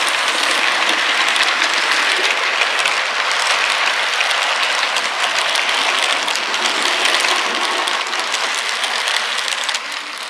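OO gauge model train running past close by: a steady, dense rattle of its wheels on the track, fading near the end as the last coaches pass.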